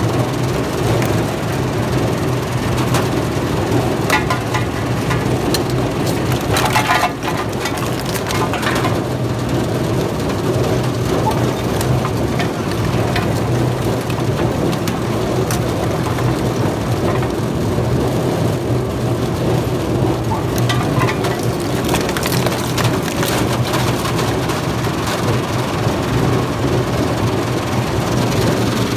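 Oil filter shredder running with a steady hum as its bladed shafts crush used car oil filters, with irregular cracking and crunching of metal, loudest about seven seconds in.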